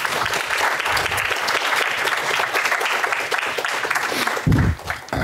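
Audience applauding, a dense steady patter of many hands clapping, with a dull low thump near the end.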